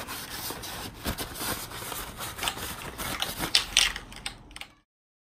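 Paper towel scrubbing over a bare metal crash bar to clean off grime, a rough rubbing with scattered small knocks and a few sharper scrapes. It cuts off suddenly near the end.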